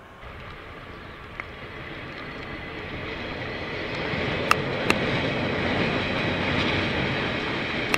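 Diesel freight train passing on the rail line, its rumble and rail noise growing steadily louder as the KiwiRail locomotives approach, with two sharp clicks about halfway through.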